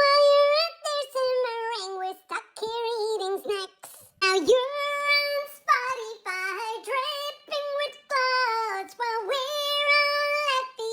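A high voice singing a melody unaccompanied, in sustained phrases broken by short breaths.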